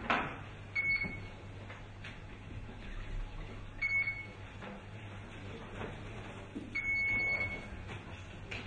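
Three electronic beeps at one steady pitch from a council chamber's electronic voting system: two short ones about three seconds apart, then a longer one of about a second near the end. A sharp knock comes right at the start, over a low steady hum of the room.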